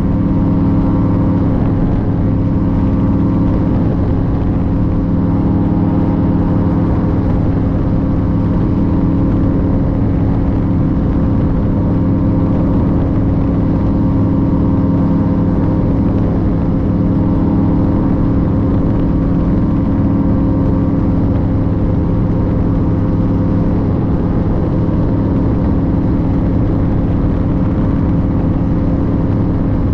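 Paramotor engine running at constant throttle: a loud, continuous drone that stays at the same pitch throughout.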